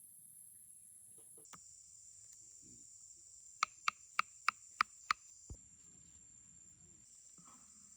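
Insects chirping steadily. About halfway through, six sharp knocks come in quick succession, about three a second, each with a brief ringing tone, followed by one dull thud.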